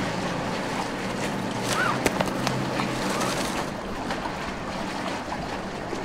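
Harbour ambience: wind, and water sloshing and lapping around moored sailboats, with a single sharp click about two seconds in.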